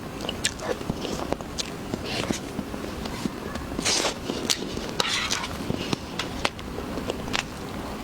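Close-miked ASMR eating of a jasmine pineapple dessert: biting and wet chewing, with frequent sharp mouth clicks and short crackly smacks.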